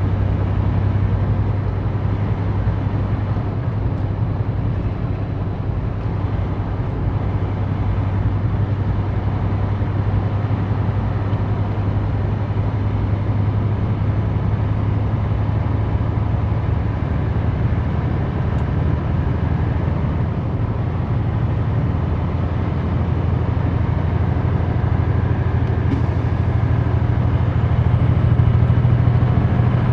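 Semi-truck's diesel engine and road noise heard from inside the cab while driving, a steady low hum that grows a little stronger near the end.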